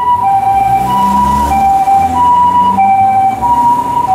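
Japanese ambulance two-tone siren alternating steadily between a high and a low tone (hi-lo, "pii-poo"), each tone held a little over half a second. The vehicle's engine rumbles underneath, loudest in the middle as the ambulance passes.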